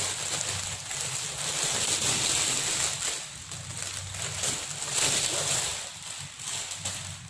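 Clear plastic wrapping rustling and crinkling as a backpack is pulled out of its bag, a run of irregular crackles that grows quieter near the end.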